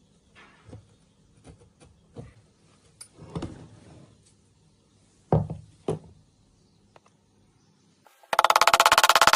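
Tools and metal parts knocking and clinking, with two sharper knocks about five and a half seconds in. Near the end an impact wrench hammers on a suspension bolt: a loud, rapid rattle lasting about a second and a half.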